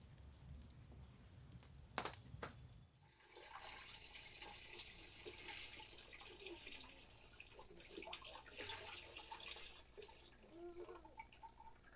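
Water poured from a jug into the top tank of a stacked plastic water filter: a steady, faint splashing pour lasting several seconds. Before the pour there is a low hum with a couple of sharp clicks.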